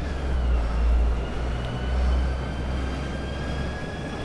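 Longboard wheels rolling over city asphalt: a steady rolling rumble with road noise, whose deepest part drops away near the end.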